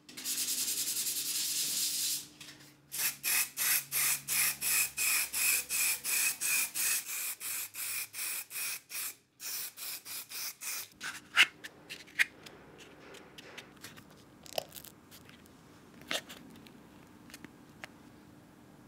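Hand sanding of filler on a resin 3D-printed part: a steady rush of noise for about two seconds, then quick back-and-forth sanding strokes, about two or three a second, for roughly eight seconds. After that come a few sharp clicks and light taps from handling the part.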